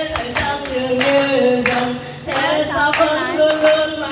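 A woman singing a slow Vietnamese song into a microphone, amplified through a loudspeaker, while several people clap along in steady time.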